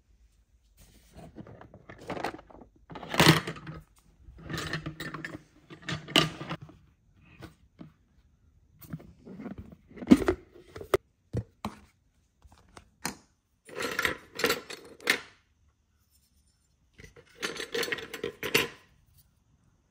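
Hard plastic parts of a spill-proof coolant funnel kit being handled: the funnel and its adapters clatter and scrape in separate bursts of a second or two, with sharp clicks between them.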